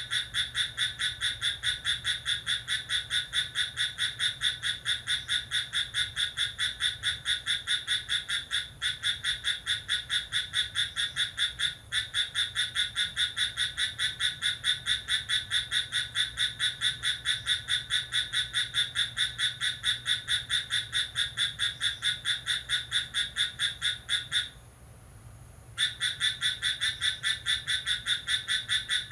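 A night-calling animal keeps up a fast, even chirping pulse, several notes a second. It breaks off once for about a second near the end, then starts again.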